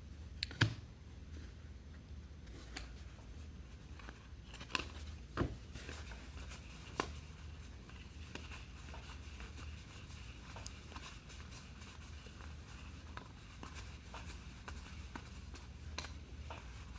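Trading card packs and cards being handled: scattered light clicks and taps, a few sharper ones in the first seven seconds, over a low steady hum.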